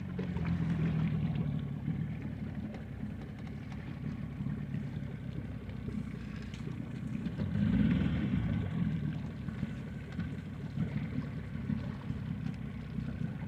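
Boat engine running steadily at a low, even hum, swelling briefly about eight seconds in.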